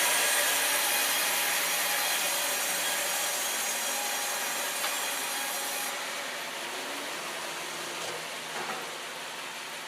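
Sawmill saw cutting through a log: a steady rasping of blade in wood that slowly fades, its highest part dropping away about six seconds in.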